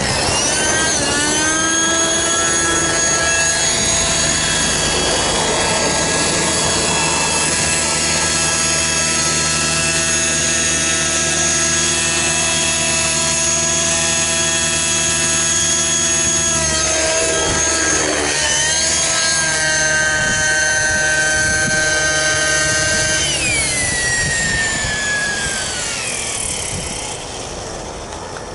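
Align T-Rex 600N nitro RC helicopter's glow engine and rotor running at a high, steady pitch. It climbs in pitch at the start, dips and climbs again a little past the middle, then falls in pitch and fades near the end as it winds down.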